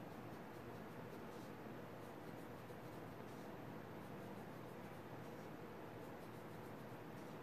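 Pencil drawing short tick marks on paper: a few faint, brief scratches over steady room hiss.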